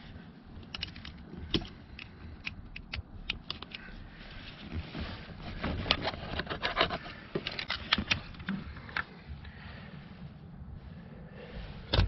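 A small metal pick clicking and scraping against the plastic latch of a power seat switch's wiring-harness connector, working it loose to unplug it. The clicks come irregularly, thickest in the middle.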